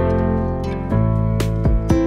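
Instrumental background music of plucked strings, with notes picked one after another over a held low bass.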